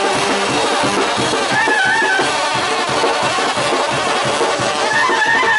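Oaxacan brass band (banda de viento) playing loud, with sousaphones pumping a quick, steady bass beat under a clarinet melody that comes in phrases about a second and a half in and again near the end.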